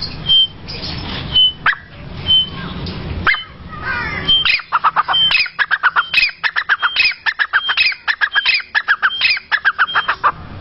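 Grey francolin (teetar) calling: from about four and a half seconds in, a fast run of loud, repeated rising notes, several a second. A short, high, steady peep also sounds about once a second throughout.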